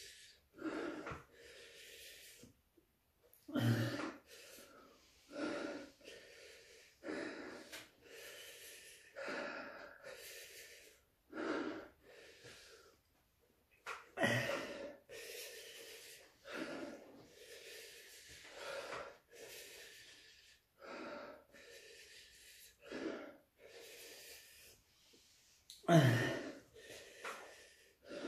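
A man breathing hard through his open mouth, gasping in and blowing out every second or two, to cool a mouth burning from hot chili peppers (capsaicin burn). The loudest gasp comes near the end.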